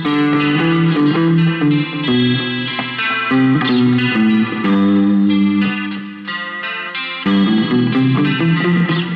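Telecaster-style electric guitar playing a noodling lead line with an overdriven tone over a looped clean guitar part. Notes sustain and change every fraction of a second, with a softer passage a little past the middle.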